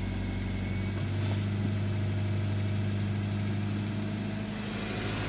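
Honda Civic coupe's four-cylinder engine idling just after a cold start, idling high and running rough, its note shifting a little about a second in. The owner blames a dirty idle air control valve.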